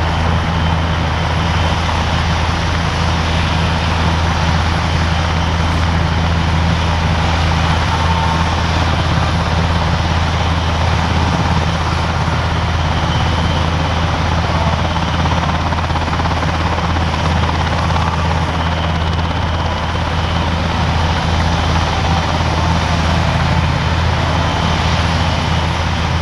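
NH90 tactical transport helicopter running steadily on the ground, its twin turboshaft engines driving the main and tail rotors at a constant pitch.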